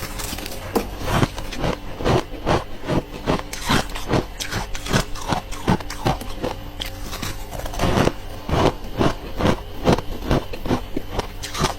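Frosty freezer ice being bitten and chewed close to the microphone: a quick run of crisp crunches, about two to three a second.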